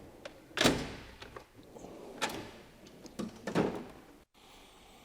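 Snap-on EPIQ toolbox drawer and the kit cases in it being handled: three knocks and slides over about three seconds, the first the loudest, then quiet.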